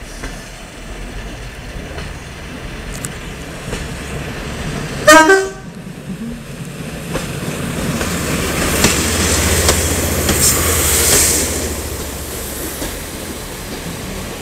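A two-car Pacer diesel multiple unit sounds one short horn blast about five seconds in, then runs past close by with a low diesel engine drone and wheels clicking over the rail joints, loudest a few seconds after the horn and fading towards the end.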